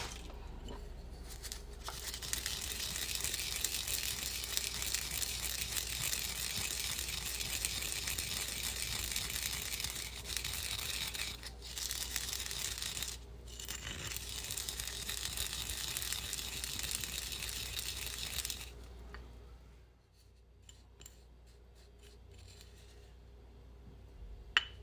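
White sesame seeds being ground with a wooden pestle in a ceramic suribachi: a steady gritty rasping of seeds crushed against the grooved bowl, with two short breaks. It stops about 19 seconds in, leaving a few light clicks and one sharper click near the end.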